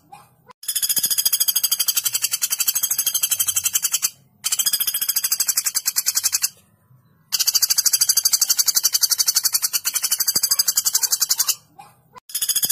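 Common flameback woodpecker (pelatuk bawang) giving long, sharp, high-pitched rattling trills of very rapid notes, in bursts of a few seconds broken by short pauses, with a new burst starting near the end.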